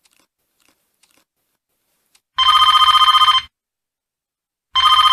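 A telephone ringing twice with an electronic warbling trill: about two seconds in comes one ring of about a second, and a second ring starts near the end.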